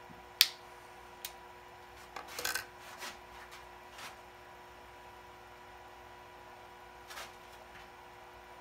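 A sharp snap as snippers cut through a round wooden toothpick, followed by a few quieter clicks, knocks and rustles of small wooden pieces and tools being handled on a workbench.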